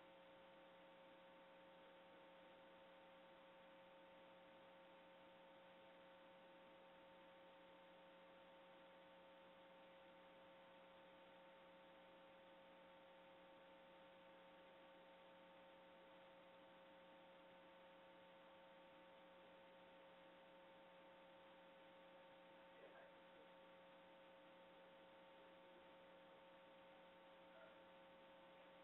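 Near silence: a faint steady electrical hum of a few constant tones over low hiss.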